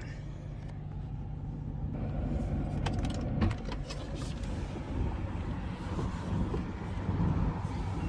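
Car engine idling, heard from inside the cabin as a steady low hum and rumble, with a few sharp clicks and a knock about three seconds in.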